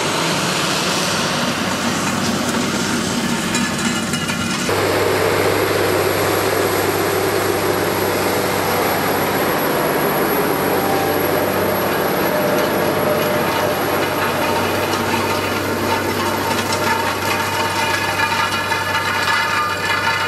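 New Holland T9.450 tractor's diesel engine working steadily under load as it pulls a Kverneland CTC 600 stubble cultivator, with the cultivator's frame and tines rattling through the soil. About five seconds in, the sound jumps abruptly to a slightly louder, nearer engine note.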